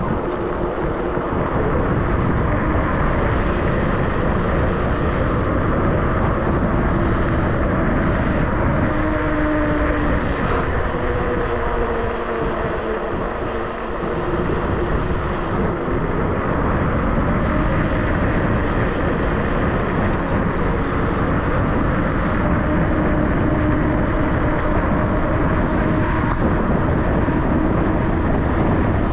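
ENGWE X24 fat-tyre electric bike riding offroad: steady wind on the microphone and tyres rolling over rough ground, with a whine that slowly rises and falls in pitch.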